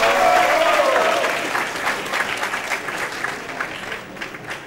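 Audience of students applauding, the clapping loudest at first and dying away over about four seconds, with a few voices calling out at the start.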